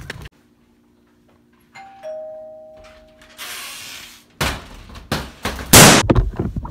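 Two-note ding-dong doorbell chime about two seconds in, a higher note followed by a lower one, each ringing away. Then a burst of hiss and several loud thumps, the loudest about six seconds in.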